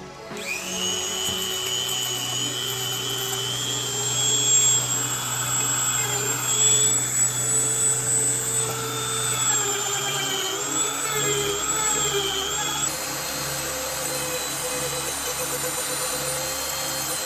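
Dremel rotary tool with a sanding bit spinning up and grinding a sneaker's rubber outsole and foam midsole, roughening them for regluing. It runs as a steady high whine that wavers in pitch partway through as the bit bears on the material, then settles again.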